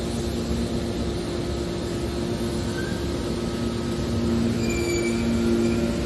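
Hydraulic scrap metal baler running, a steady machine hum with a held low drone. It gets louder about four seconds in, with faint high-pitched squeals over it.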